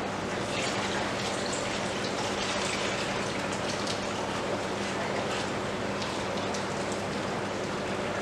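Milk splashing as it is poured from plastic pouches into a plastic tub, with pouch plastic crinkling, over a steady rushing background noise and a low hum.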